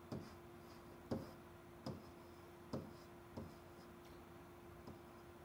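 Pen knocking and scratching on a whiteboard while digits are written by hand: faint, irregular taps about once a second, thinning out near the end, over a faint steady hum.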